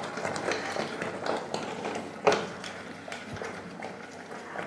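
A spoon stirring a thick rice-and-lentil jaggery pudding in a metal pot, with irregular light knocks and scrapes against the pot. There is one louder clack about two seconds in.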